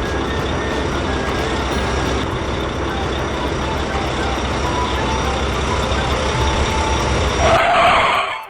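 Heavy truck engine sound effect running steadily with a low rumble. It stops about a second before the end, where a brief warbling cartoon sound follows.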